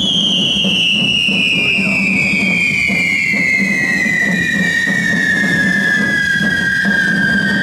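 Whistling firework burning: one long shrill whistle that falls slowly in pitch, over the fizzing crackle of sparkling firework fountains.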